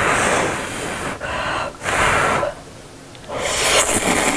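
Instant ramen noodles in spicy stew broth slurped into the mouth in three long, noisy sucks of air, the last one airy and hissing.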